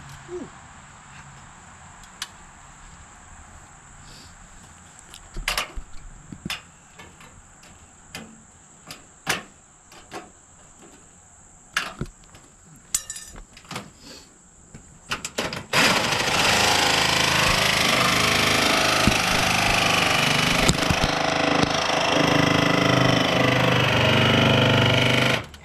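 Scattered knocks and clicks of tools being handled, then about sixteen seconds in a power drill with a hole saw starts and runs steadily under load for about ten seconds, boring a hole, before stopping suddenly near the end.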